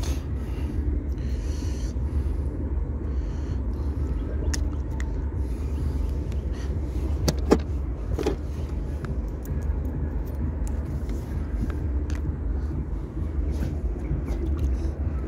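Steady low rumble, with a few sharp clicks and knocks about seven to eight seconds in as a crappie is handled and clipped onto a stringer.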